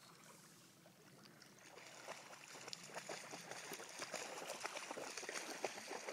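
Shallow lake water sloshing and splashing around someone wading, faint at first and growing louder with rapid small splashes from about two seconds in.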